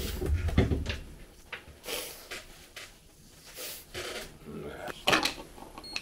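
Plastic wrapping and a small cardboard box rustling and crinkling in short, uneven bursts as a digital thermometer is unpacked, loudest in the first second and again about five seconds in. A short high beep comes near the end.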